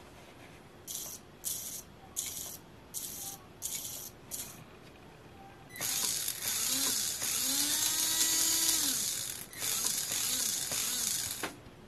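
Kyosho Mini-Z MR-03 RWD's electric drivetrain whirring with its wheels spinning freely off the ground in training mode: six short whirs, then about halfway in a longer run whose pitch rises, holds and falls away.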